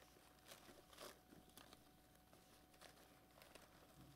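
Paper raffle tickets being shaken and tumbled in a clear bowl, heard as faint, irregular rustles.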